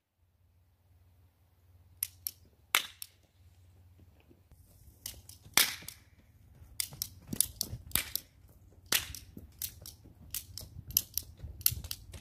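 Dollar-store toy cap gun fired repeatedly: one loud crack about five and a half seconds in, among many sharper, smaller clicks and pops. The smaller clicks come quickly and unevenly near the end. Some are caps that fail to go off, since the gun doesn't fire every time the trigger is pulled.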